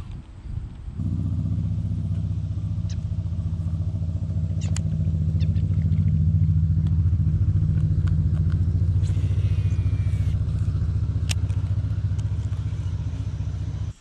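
An engine running steadily, a low even hum with a fine rapid pulse. It starts about a second in, swells towards the middle and cuts off suddenly at the end.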